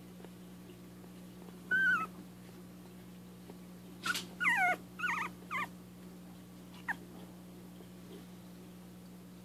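Young dachshund puppies whimpering in high, wavering squeaks: one cry about two seconds in, a quick run of several cries a couple of seconds later, and a short squeak near the end.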